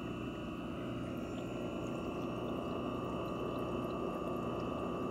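Aquarium filter running: a steady trickle of moving water with a constant hum.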